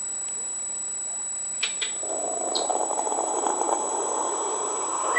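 African grey parrot making a low raspy chattering sound for about three seconds, after two quick clicks and a brief high chirp.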